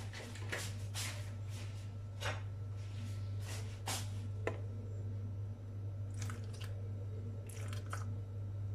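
Handling noises as a plastic milk bottle is fetched and opened: a scatter of short clicks and scrapes, most of them in the first half and a few more near the end, over a steady low hum.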